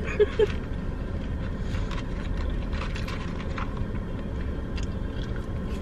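Steady low rumble of a car's engine idling, heard from inside the cabin, with faint scattered clicks and smacks of eating.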